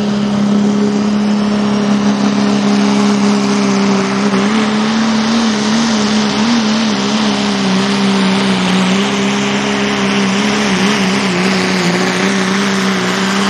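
Dodge Ram diesel pulling truck at full throttle hauling a sled: the engine is held at a steady high pitch, wavering slightly partway through the pull, over a dense rush of exhaust noise.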